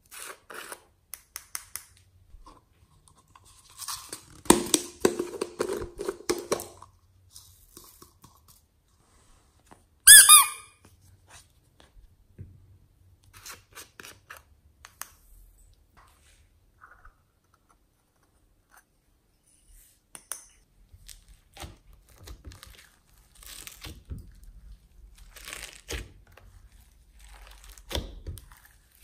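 Glitter and sequins rattling as they are shaken from a small container onto slime in a glass tray, in scattered clicks and crackles, with a denser rustling stretch around four to seven seconds in and one short, loud squeak about ten seconds in. Near the end, glossy slime crackles as it is pulled up and folded.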